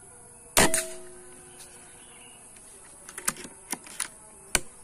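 A Wolverine PCP air rifle firing: one sharp crack with a short ringing tail about half a second in. Several lighter clicks follow near the end as the rifle is handled.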